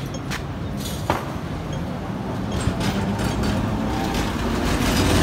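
Hong Kong double-decker tram rolling past close by on its rails, getting louder toward the end with a few short clicks from its wheels, over steady street traffic.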